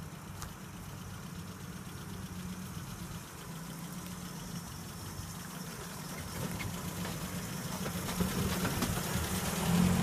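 Land Rover Series 4x4 engine running at low revs as the truck crawls over railway tracks, growing louder as it comes up close.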